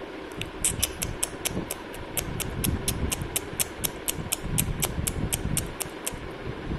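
A rapid, even series of short, sharp, high-pitched clicks, about four a second, stopping shortly before the end, over a low rumble.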